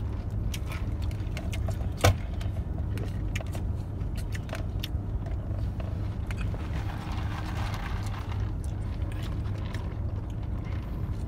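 Steady low hum of a car heard from inside the cabin, with scattered light clicks and rattles of plastic drink cups being handled and one sharp click about two seconds in.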